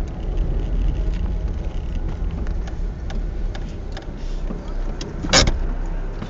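A car driving, heard from inside the cabin: a steady low engine and road rumble with small clicks and rattles. There is one short, loud thump about five seconds in.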